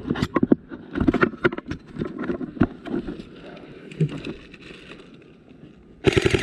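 Irregular knocks and rustling, then near the end a loud burst of full-auto airsoft gun fire begins: a fast, even rattle of shots.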